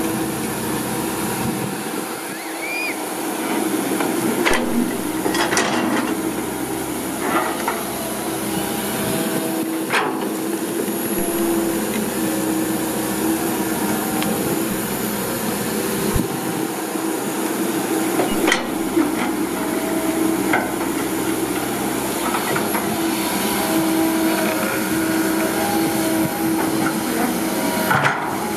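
Komatsu hydraulic excavator working, its engine and hydraulics running as a steady drone with a hiss on top, broken by a few sharp clanks and knocks.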